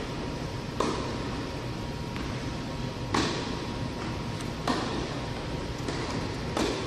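Tennis ball struck back and forth with rackets in a rally, four sharp hits one and a half to two and a half seconds apart, echoing in a large indoor tennis hall.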